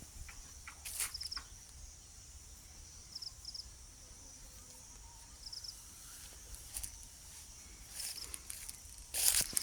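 Steady high-pitched insect drone with short double bird chirps every two seconds or so. A brief rustle about a second in and louder rustling near the end.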